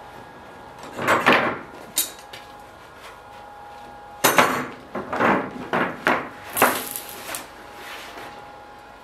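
Steel sword blade being handled and worked at a bench vise during heat treatment: a scrape about a second in, a sharp click, then a quick run of short noisy scraping and clattering bursts, over a faint steady hum.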